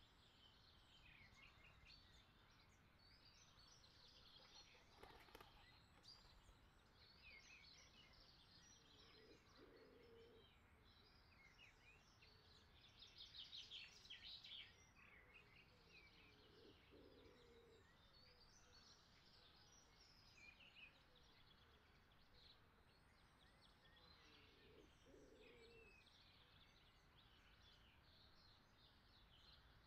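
Near silence with faint birdsong: scattered chirps throughout and a short, slightly louder trill about thirteen seconds in.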